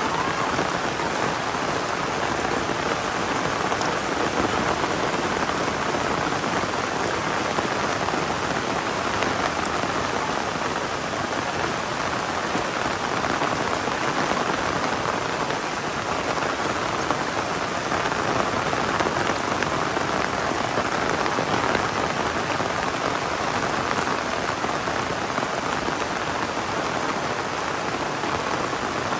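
Heavy rain falling steadily, a dense even patter on surfaces with no let-up.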